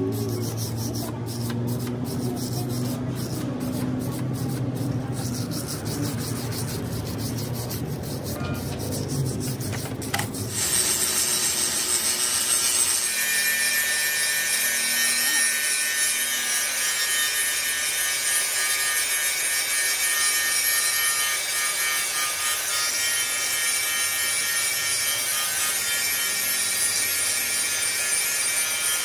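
For the first ten seconds or so, a hand tool scrapes and taps over a fresh weld on a steel truck axle spindle, with clicking strokes early on. Then a hand-held angle grinder grinds down the weld bead on the spindle. It makes a steady, high-pitched grinding whine with several ringing tones.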